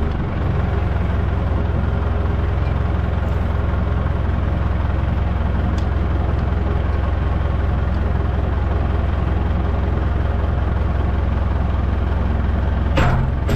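Tractor engine running steadily while it hoists an engine and gearbox out of a Jeep, with a sharp knock near the end.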